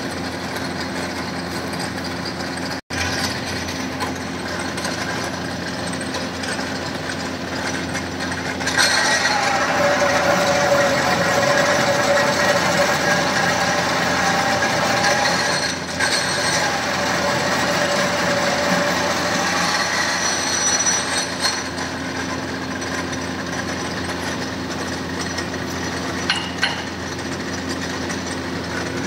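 Pillar drill press motor running steadily. From about 9 to 21 seconds the bit cuts into a metal part, which makes it louder and adds a whining tone; after that the motor runs on alone.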